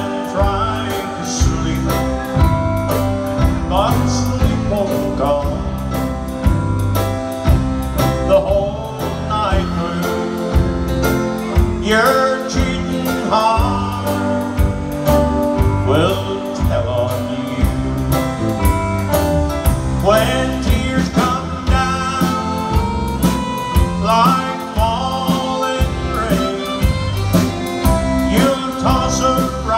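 Live band music: a man singing lead into a microphone over electric bass guitar and drums, with a steady beat.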